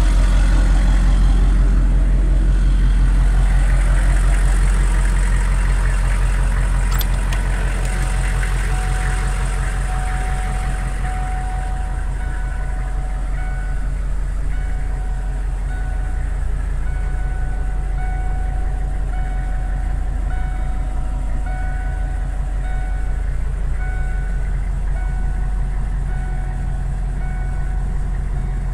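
Hummer H1 engine idling, a steady low rumble heard from inside the cabin. From about twelve seconds in, a short warning chime repeats roughly once a second over it.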